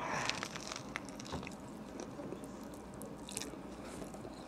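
Biting into a Subway sub sandwich, then chewing. The bite is loudest, about the first half second, followed by quieter chewing with faint scattered clicks.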